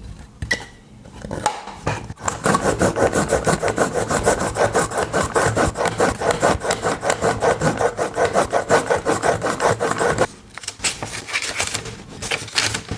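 A pocket knife blade stroked rapidly back and forth through a knife sharpener, a steady rasping scrape of many quick strokes. The rasping starts about two seconds in and stops abruptly about ten seconds in, with only a few lighter scrapes around it.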